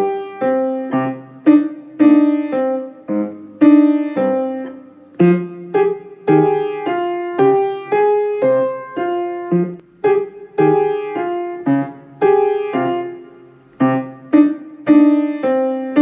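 Piano playing a simple beginner boogie piece with both hands: a steady beat of struck notes and chords, each decaying before the next.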